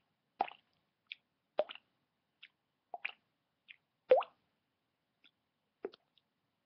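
Mouth-made water-droplet sound: a finger flicking the cheek over an open mouth, giving about five short separate plops a second or so apart, some with a quick upward sweep in pitch. The loudest comes about four seconds in.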